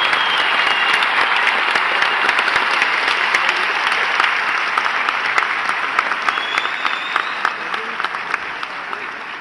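Large audience applauding, the clapping gradually fading over the last few seconds.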